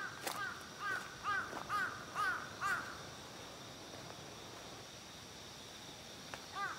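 A crow cawing in a quick run of about seven caws, roughly two a second, over the first three seconds, then starting again with two more caws near the end.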